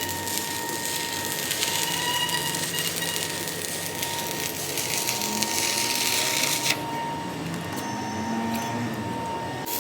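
Metal lathe running while it cuts the steel truck axle. There is a steady hiss over a constant motor tone, and the cutting hiss breaks off suddenly about seven seconds in while the machine keeps running.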